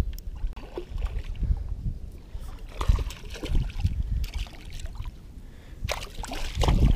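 Shallow marsh water sloshing and splashing as a hooked fish thrashes at the surface close to a wading angler, with a sharper splash about six seconds in.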